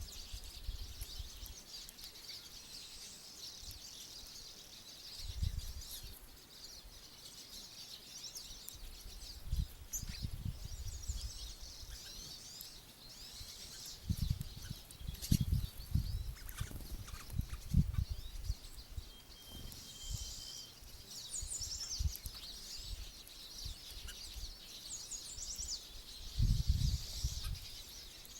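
A dense chorus of small songbirds chirping and trilling continuously at a feeder, with one short held whistled note partway through. Several low rumbles and thuds break in, the loudest near the middle and near the end.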